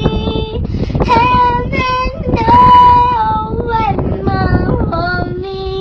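A young girl singing a slow melody solo, with long held notes and one loud sustained high note in the middle.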